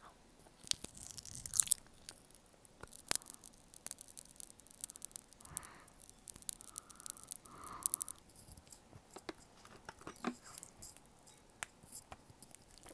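Cola-flavoured popping candy crackling and being chewed close to the microphone: many small sharp pops and mouth clicks scattered through.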